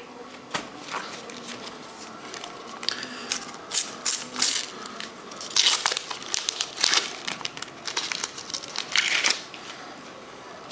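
A paper sticker-pack wrapper being torn open and crinkled by hand, in irregular bursts of crackling and tearing with quieter handling between them.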